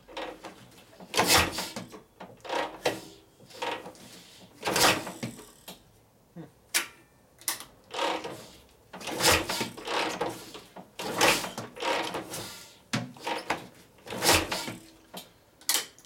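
Kick-starter of a 1965 Harley-Davidson Panhead being kicked over again and again, a clattering stroke every second or two as the 74 ci V-twin turns over without firing.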